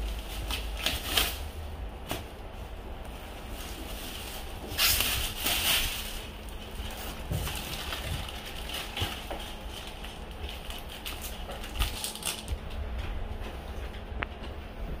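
Thin plastic bag rustling and crinkling in irregular bursts as it is pulled off a new flat-screen TV, loudest about five seconds in.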